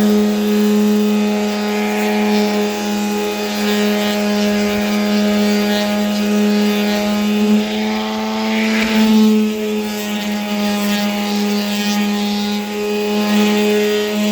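Power sander running steadily against a van's painted hood: a constant motor hum whose pitch dips slightly about eight to nine seconds in.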